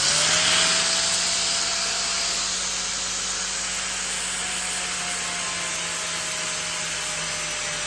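Bosch GWS 700 angle grinder running at full speed after spinning up, with a steady high whine over a dense hiss.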